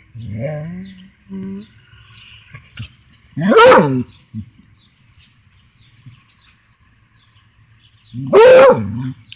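Redbone Coonhound barking at an unfamiliar object, a wire grill brush: two loud barks, one about three and a half seconds in and another near the end.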